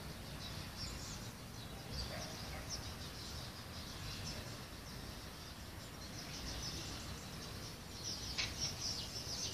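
Many small birds chirping in short, quick calls over a low steady rumble, the chirping growing busier near the end.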